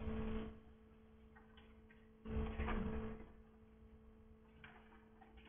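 Classroom room tone with a steady electrical hum, broken by two short bursts of noise, one right at the start and a longer one about two seconds in, with a fainter one near the end.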